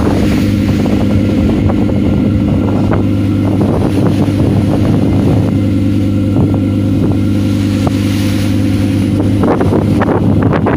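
Wooden fishing boat's engine running with a steady drone while under way, with the bow wave rushing and splashing along the hull.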